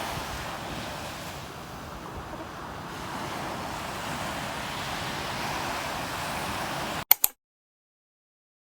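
Sea waves washing on a beach: a steady rush that swells a little in the middle. About seven seconds in it ends with two sharp clicks and cuts to silence.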